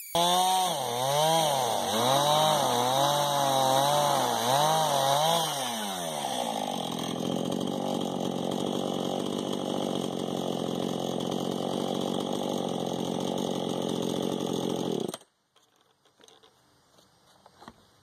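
Chainsaw on an Alaska chainsaw mill ripping lengthwise through a log. Its engine pitch wavers up and down under the load of the cut for about six seconds, then settles to a steadier, lower note, and stops abruptly about fifteen seconds in.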